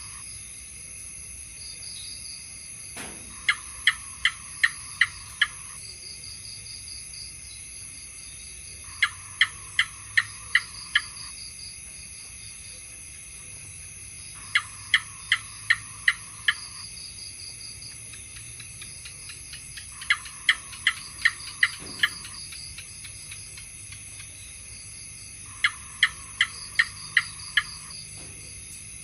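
House gecko calling: five bouts of about six sharp chirps, each bout lasting about two seconds and repeating roughly every five and a half seconds. A steady high insect-like drone runs underneath.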